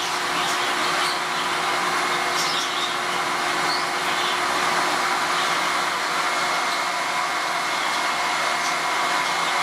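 MIE Ecologico water-filter vacuum cleaner with separator running steadily, a constant whine over its motor's air rush.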